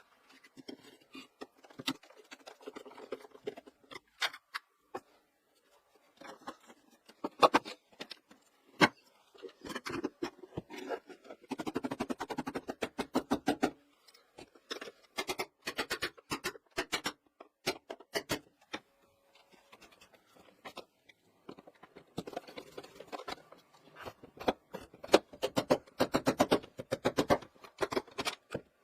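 Rapid scraping strokes of a hand tool on wood, in bursts of quick back-and-forth strokes with short pauses between them.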